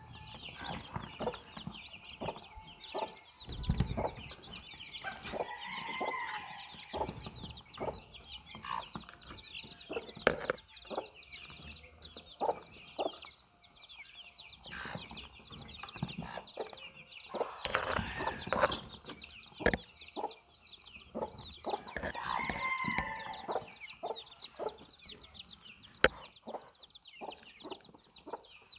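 A brood of baby chicks peeping constantly in quick high chirps, with a hen clucking now and then, plus scattered sharp knocks.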